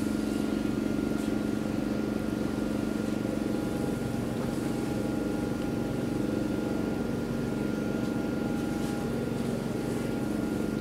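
A steady mechanical hum with a thin constant higher tone over it, unchanging throughout.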